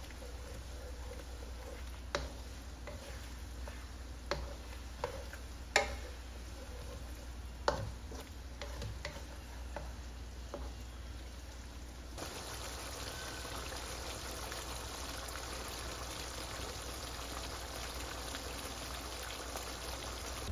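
Wooden spatula stirring chicken feet curry in a non-stick wok over a steady sizzle, with a few sharp knocks of the spatula against the pan. About twelve seconds in the knocks stop and the sizzling of the simmering sauce gets a little louder.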